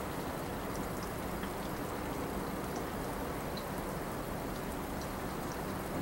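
Steady rain and wet snow falling, with scattered drops ticking.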